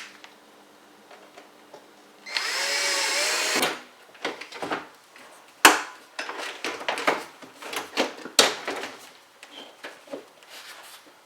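Cordless drill-driver runs for just over a second, its motor whine dipping and rising as it drives a screw into the dishwasher door. It is followed by a run of sharp clicks and knocks as the door panel and screws are handled.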